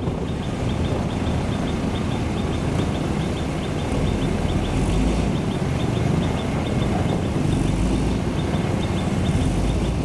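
Heavy diesel road-construction machinery running steadily, a low engine rumble from the motor grader and the water tanker truck working the gravel. The rumble swells deeper a few times. A light ticking, about four a second, rides high above it.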